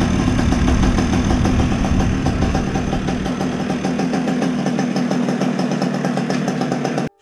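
Yamaha Jog scooter engine idling steadily, holding its idle during a check of a possibly dirty carburetor. It cuts off suddenly near the end.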